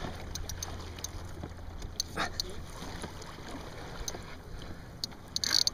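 Water lapping around a fishing kayak, with scattered small clicks and knocks and a brief hiss near the end.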